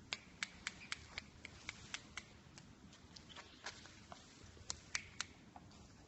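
A string of short, sharp clicks at uneven intervals, about three a second, over a faint steady background hiss.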